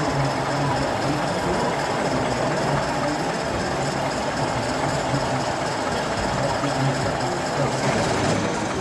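Model train running along a layout's track, over a steady, even background din.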